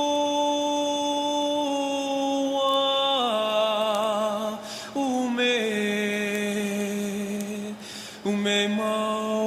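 Background music: a voice holding long sustained notes that step down in pitch twice, with a short break about eight seconds in.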